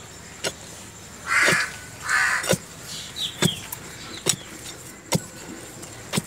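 Two harsh crow caws close together about a second and a half in, the loudest sounds. Under them, about seven sharp knocks, roughly one a second, from a hand digging tool striking the dry, hard soil of a planting hole.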